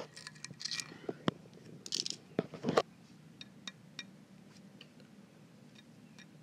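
A knife tip scraping and tapping small metal ball bearings from a heat-damaged fidget spinner: a run of sharp clicks and scrapes, loudest in the first three seconds, then lighter ticks.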